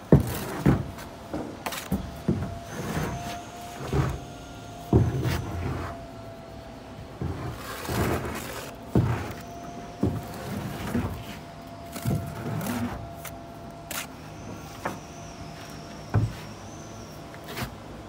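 Steel brick trowel scraping mortar and knocking against concrete blocks as a block is buttered and laid to the line: a string of sharp scrapes and taps about once a second, with a few heavier thuds as the block is set down and pressed in. A faint steady whine runs underneath.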